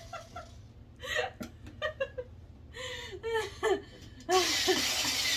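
A person laughs in short bursts. About four seconds in, a corded electric drill starts and runs steadily, driving screws into the wooden enclosure frame.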